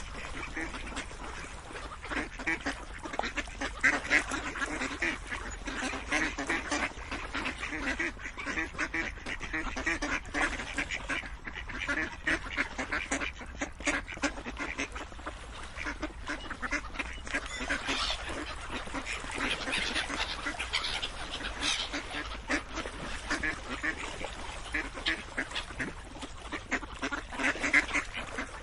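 Many ducks quacking, their short calls coming thick and fast and overlapping one another without a pause.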